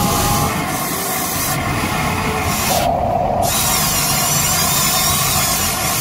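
Small electric motors and gears of a radio-controlled toy excavator whirring steadily as the boom and bucket dig into wet mud.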